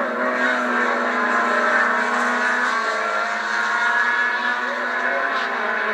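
Race car engines running hard as open-cockpit sports racers go by on the circuit: a steady note of several engine tones at once. It is heard through a TV's small speaker, thin and without bass.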